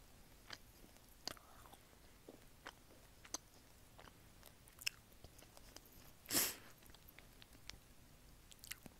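Close-miked mouth sounds of a person chewing chocolate: scattered soft clicks and smacks, with one louder, longer noise about six seconds in. The sound is picked up right at the lips on an earphone cord's inline microphone.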